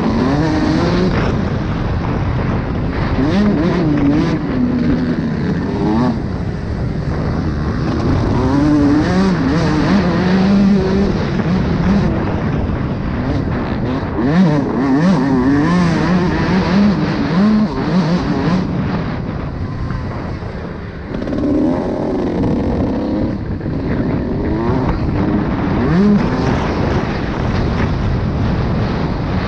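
Motocross bike engine revving up and down hard through the gears as it races over a dirt track, heard from on the bike. About two-thirds of the way through the throttle eases off briefly, then the engine picks up again.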